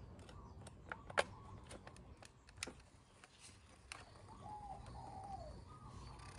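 A few sharp plastic clicks from the scooter's wiring connectors being handled and plugged together behind the gauge cluster; the loudest comes about a second in. In the second half a dove coos two or three times, its notes falling in pitch.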